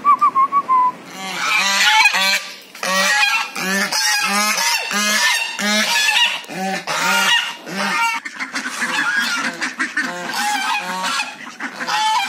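A flock of white domestic geese honking repeatedly, many loud calls in quick succession, about two or three a second. A brief high warbling call comes at the very start.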